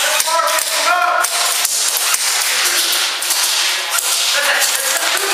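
Airsoft guns firing scattered single shots, sharp snapping cracks at irregular intervals, echoing in a large indoor hall.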